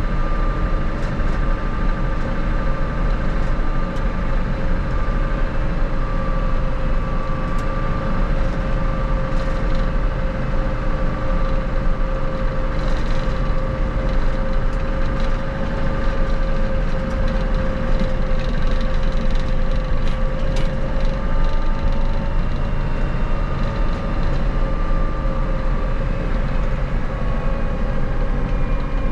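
Tractor engine running steadily under light load, heard from inside the cab, with a constant whine from the drivetrain over the rumble as it drives along a farm track.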